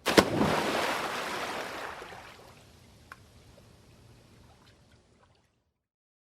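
A body diving into water: a sharp slap on entry, then a rush of splashing that fades over about two seconds, followed by a few faint drips and trickles as the water settles.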